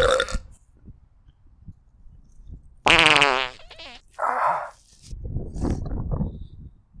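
A person farting: one loud, buzzy fart about three seconds in, lasting under a second. A shorter, softer sound and a stretch of low, rough noise follow.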